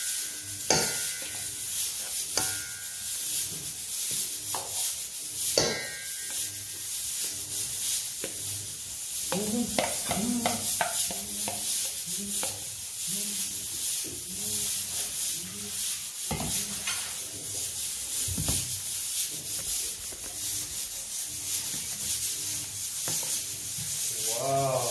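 Kitchen sounds of a salad being dressed in a stainless steel mixing bowl: knocks and scrapes of a container and hand against the metal bowl over a steady hiss.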